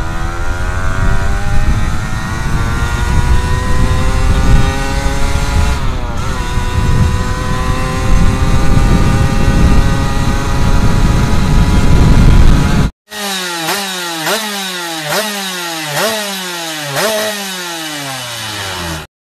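Yamaha F1ZR's two-stroke single through a hollowed-out stock exhaust, first under way with the pitch climbing steadily and dipping at a gear change about six seconds in, then climbing again. After a cut about thirteen seconds in, the engine is revved in a string of quick blips about one a second, each rising sharply and falling off more slowly.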